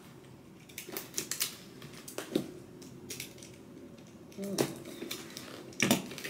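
Packaging being handled by hand as a box is unpacked: scattered light clicks, taps and rustles, with a few sharper knocks, the loudest near the end.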